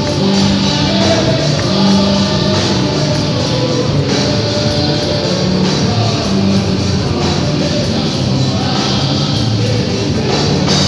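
Loud live church praise music over loudspeakers: several singers on microphones with a band, drums keeping a steady beat.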